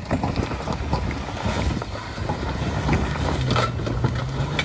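Off-road vehicle driving over loose rock, its engine running under a rough rumble of tyres and many small clicks of stones, with wind on the microphone. A steady low engine note comes in about three seconds in.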